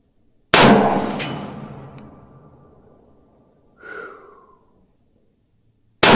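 Two shots from a 5.56 AR-15-style rifle, about five and a half seconds apart, each followed by a rolling echo that dies away over about two seconds.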